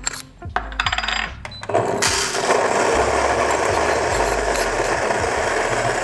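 Coffee beans clattering as a dose is loaded, then about two seconds in the Fellow Ode's 64 mm flat-burr grinder starts and grinds the beans with a loud, steady, dense grinding noise that begins to fade only at the very end.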